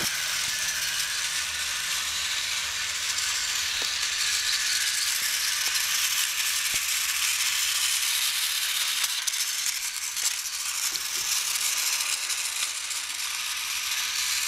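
Battery-powered TrackMaster toy train engines running on plastic track: a steady mechanical whirring and rattling from their small geared motors, wheels and trucks, with a few light clicks.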